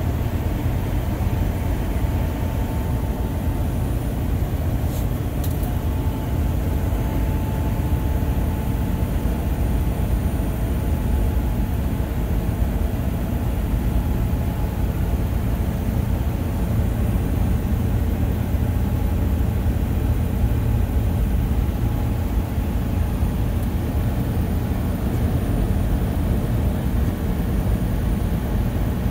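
Steady low road rumble inside the cab of a vehicle cruising at highway speed. There is a faint double click about five seconds in.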